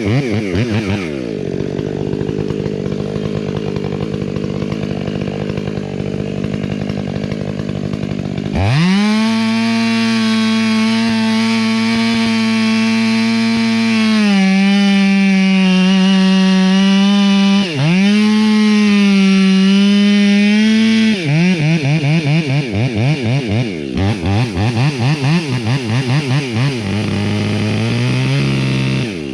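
Two-stroke chainsaw running, opened up suddenly to full throttle about a third of the way in and held there, its pitch sagging slightly as it cuts wood. In the last third the throttle is blipped rapidly, the engine note rising and falling over and over.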